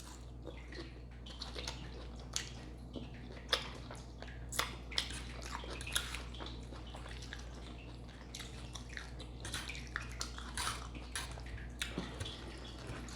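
Close-miked chewing of a salad: many irregular wet mouth clicks and smacks, over a steady low hum.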